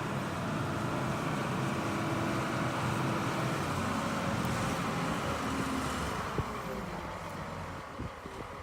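Engine of a Badger 1085C Cruz-Air wheeled excavator running steadily, growing quieter near the end.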